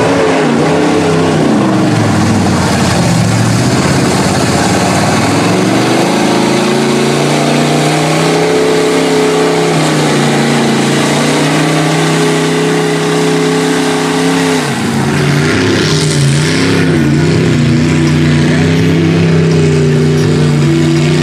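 Lifted pickup truck engine revving hard as it drives through a mud bog, the revs swinging up and down at first and then held high and steady. About fifteen seconds in the revs dip and wobble briefly before climbing back up.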